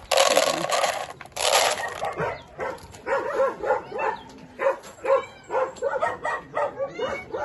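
Two loud bursts of rustling noise in the first two seconds, then dogs barking again and again, two or three barks a second, set off by stray cats passing outside.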